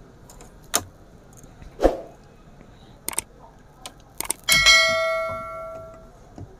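A bell ding sound effect from a subscribe-button animation, ringing out with several overtones and fading over about a second and a half. A few sharp clicks come before it.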